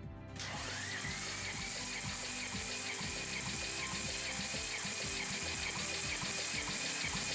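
Audi 3.2-litre V6 (CALB) being cranked over by an electric motor during a compression test on its sixth cylinder: a steady motor whine that spins up about half a second in, then holds with small regular dips. The cylinder's compression builds to about 13 kg/cm².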